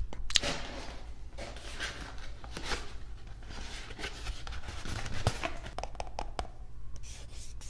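Cardboard food box and a small cup handled close to a binaural microphone: scattered crinkling, scratching and light tapping, with a brief squeak a little after the middle.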